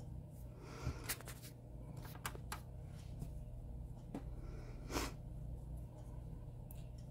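Makeup brush stroked over the face: a few short, soft, scratchy swishes, the loudest about five seconds in, over a steady low hum.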